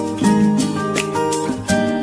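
Background instrumental music with a steady beat and a melody of held notes that change every fraction of a second.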